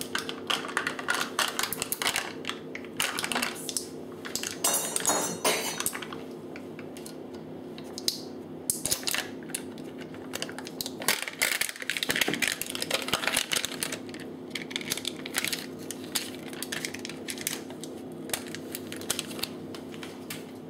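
Plastic tub lids and foil seals on crème fraîche and cream cheese tubs being pried off and peeled back, making irregular runs of crackling and clicking over a steady low hum.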